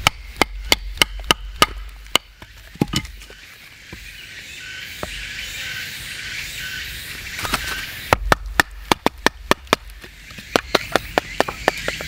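A knife being batoned through kindling on a wooden stump: quick runs of sharp wooden knocks, about four or five a second, in three bursts with pauses between.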